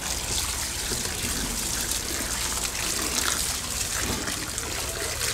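A steady stream of water pouring into a metal basin of raw chicken pieces, splashing as hands swirl and rinse the meat.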